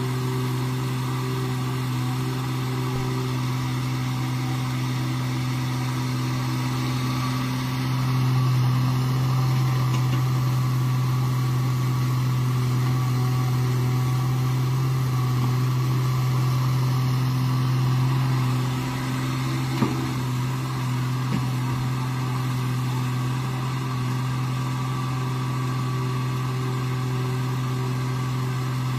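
Sumitomo hydraulic excavator's diesel engine running steadily under digging load, growing louder for about ten seconds in the middle as it works harder. A single sharp knock sounds about two-thirds of the way in.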